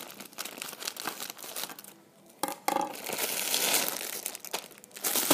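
Packaging crinkling and rustling as it is handled, with a short pause about two seconds in before it starts again louder.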